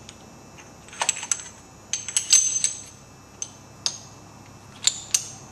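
Metal clinks and knocks as a rifle's upper receiver assembly is set into the jaws of a steel bench vise: a few light taps about a second in, the loudest run of clinks just after two seconds, then single knocks, two of them near the end.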